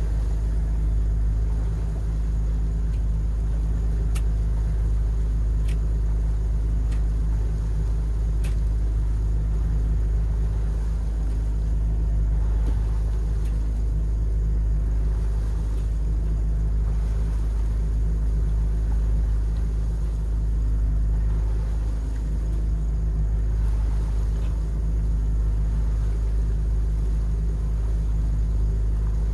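A sailboat's inboard engine running steadily under way: a constant low drone with a few faint clicks.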